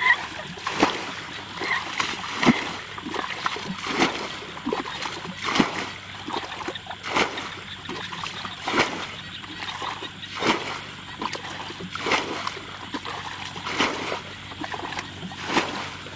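Muddy water being bailed with a plastic bucket, scooped and flung out with a splash about every second and a half, to drain a shallow pool.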